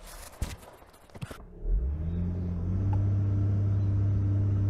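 A few sharp clicks, then the Honda Ridgeline's V6 revs up about a second and a half in and holds at steady raised revs in reverse, straining against brakes seized from sitting over the winter.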